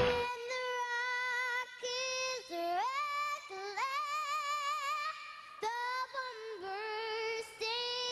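A young girl singing solo into a microphone with no accompaniment: several phrases of long held notes with vibrato and slides up in pitch, with short breaths between them.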